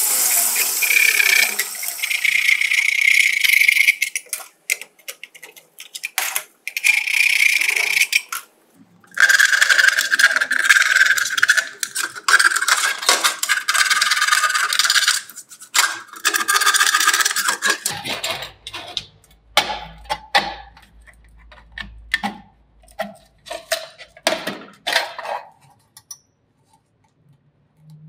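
Hand file rasping back and forth on the edges of a hole cut through a steel plate, in spells of a few seconds with short pauses: the rough edges of a hole burned with a welding rod being smoothed. About two-thirds of the way in it gives way to shorter, uneven scrapes and light metal knocks.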